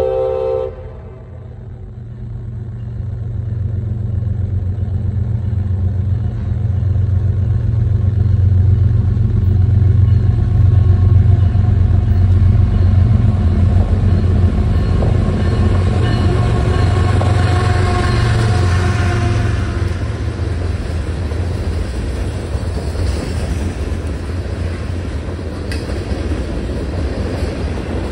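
CSX freight train: the last of a horn blast cuts off about a second in. The diesel locomotive's low rumble then builds as it approaches and passes, and the freight cars roll by with a steady noise near the end.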